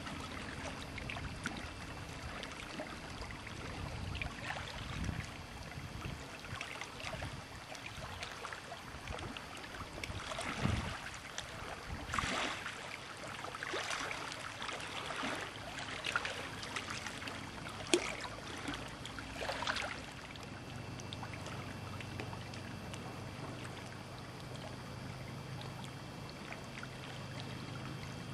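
Water splashing and lapping against a boat's hull, with sharper splashes over the middle stretch. A steady low hum comes in about two-thirds of the way through.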